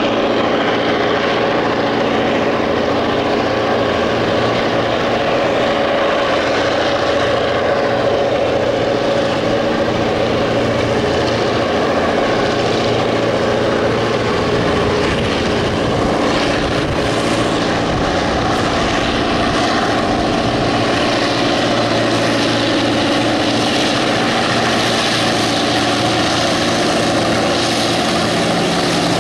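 Several Clyde-EMD two-stroke diesel-electric locomotives at the head of a loaded grain train working hard up a grade, with a loud, steady engine drone.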